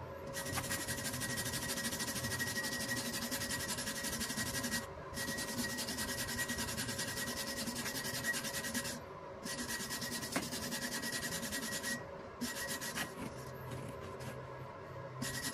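Hand wire brush scrubbing steel stick-weld beads in rapid back-and-forth strokes, cleaning off slag and spatter. It stops briefly three times.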